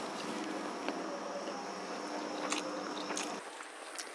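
Faint squishing of cooked rice being mixed by hand with dal and sour curry on a steel plate, with a few soft clicks.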